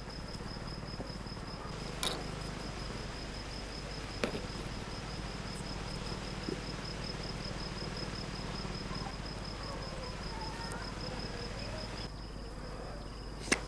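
A cricket chirping steadily outdoors, a high, evenly pulsed chirp that stops about twelve seconds in. There are a couple of faint knocks from handling the work, and a sharp click near the end.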